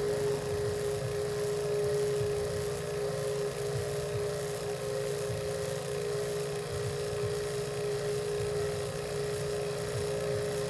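Electric HVAC vacuum pump running with a steady, even hum as it evacuates an air-conditioning system's refrigerant lines, the vacuum still coming down.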